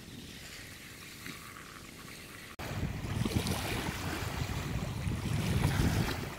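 Small lake waves lapping and washing onto a sand-and-pebble shore. The sound cuts in suddenly about two and a half seconds in, after a faint steady hiss.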